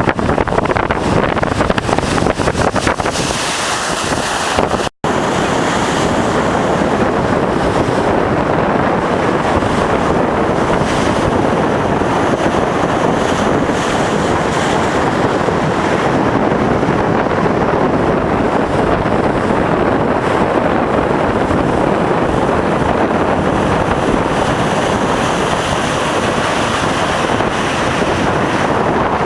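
Heavy typhoon-driven surf crashing and rushing, with strong wind buffeting the microphone in gusts. There is a brief dropout about five seconds in, then a steady roar of surf and wind.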